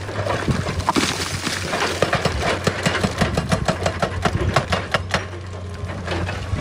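Excavator engine running with a steady low hum under a dense, irregular clatter of sharp knocks, heaviest in the middle of the stretch, as the machine works rock.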